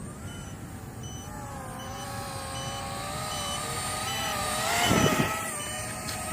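Brushless micro quadcopter motors whining steadily in flight, their pitch wavering with throttle, while a low-battery alarm beeps at an even pace. About five seconds in there is a brief louder rush of motor and prop-wash noise.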